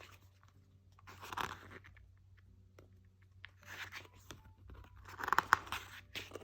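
Album pages and paper inclusions being handled: four short bursts of paper rustling and crinkling, the loudest about five seconds in.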